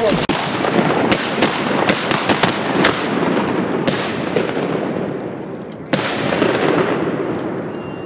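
Volley of shotgun blasts from several duck hunters firing at once: about ten quick shots in the first four seconds, one more shot about six seconds in, each echoing and dying away slowly.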